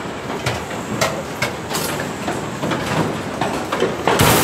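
Construction-site work noise: irregular knocks and clanks of tools and steel over a steady din of site machinery, with one loud thump near the end.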